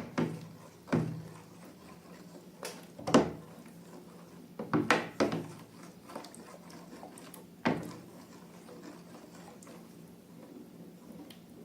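Irregular knocks and taps as objects are handled and set down, about eight over the first eight seconds with a quick cluster in the middle, then only faint handling noise.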